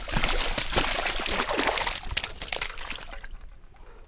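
Water splashing and sloshing as a hooked striped bass thrashes while being landed, busiest over the first two and a half seconds, then dying down.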